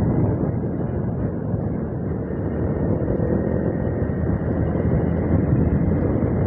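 Steady, muffled rumble of wind and engine noise on a camera riding on a moving motorcycle.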